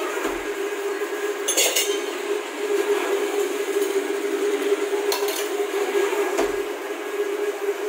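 Metal spoons and serving utensils clinking against stainless steel twice, over a steady machine hum, with two low thumps.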